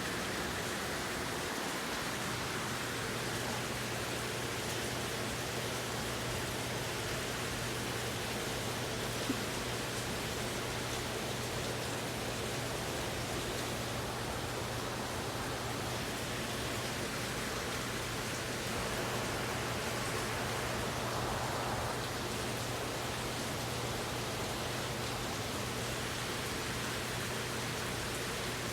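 Steady rain falling, an even hiss without a break, with a low steady hum underneath from about two seconds in and a single faint tick near nine seconds.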